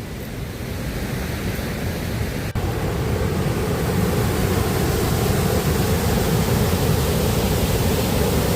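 Steady rushing of a waterfall, growing a little louder over the first few seconds, with a momentary dropout about a third of the way in.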